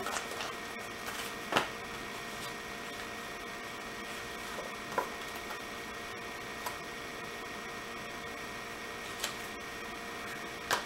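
Quiet room tone with a steady faint electrical hum, broken by a handful of light, scattered clicks and taps as things on the table are handled.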